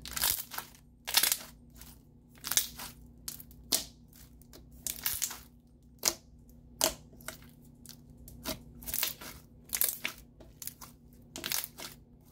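Thick, glossy clear slime with foam beads being kneaded and pressed by hand, giving a run of short squishes, roughly one a second. The slime is starting to get sticky.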